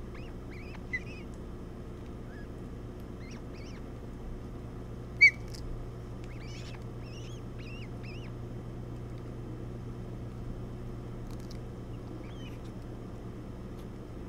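Short, scattered, high chirping calls from ospreys at the nest during a feeding, with one much louder chirp about five seconds in, over a steady low hum.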